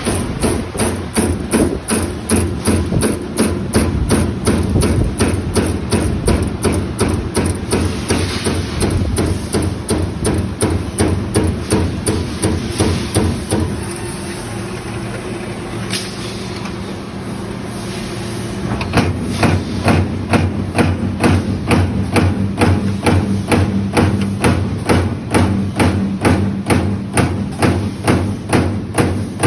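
Amada CNC turret punch press punching galvanized steel sheet: a rapid, even run of sharp metallic strikes, about three a second. About halfway through the punching pauses for a few seconds, leaving only the machine's steady hum, then resumes.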